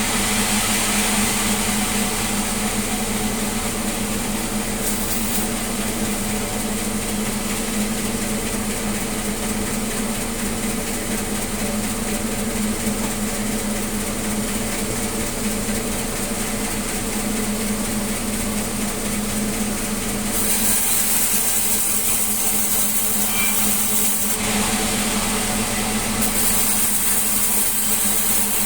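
Sawmill saw running steadily with a constant motor hum. About twenty seconds in, a bright hissing sound rises over it twice.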